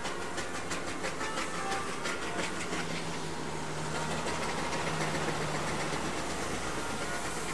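A train running past on the railway line. A rapid, rhythmic clatter of wheels over the rail joints in the first couple of seconds gives way to a steady rumble with a low hum.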